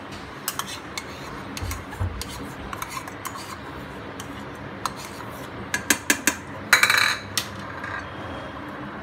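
Metal slotted spoon scraping ghee out of a bowl and knocking against the rim of a small pressure cooker: scattered light clicks and scrapes, with a cluster of clicks and a longer rattling scrape about six to seven seconds in.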